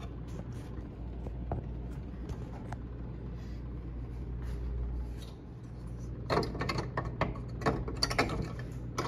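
Clicks and rattles of hands pushing the blower motor's wiring plug back together, heard as a cluster of sharp clicks past the middle, over a steady low hum.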